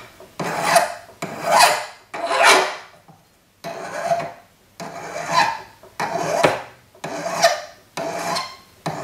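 Hand file rasping across the end of a metal cuff blank, rounding off the tail: about ten short strokes at roughly one a second, with a brief pause about three seconds in.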